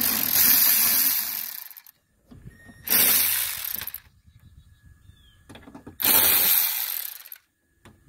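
Cordless electric ratchet running in three bursts of about one to two seconds each, spinning out already-loosened bolts that hold a car window regulator.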